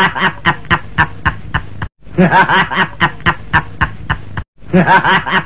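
A man's hearty laughter in rapid 'ha-ha' pulses, about five a second. It is a short laugh clip looped, cutting off and starting over about two seconds in and again near the end.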